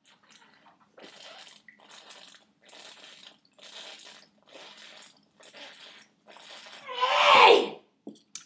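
A person chugging from a bottle, with a steady run of gulps just under two a second, then a loud voiced exhale near the end.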